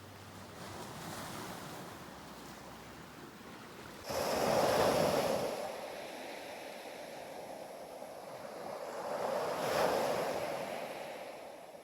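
Ocean waves breaking on a shore. One wave crashes suddenly about four seconds in and washes out. Another swells, breaks around ten seconds in, and ebbs.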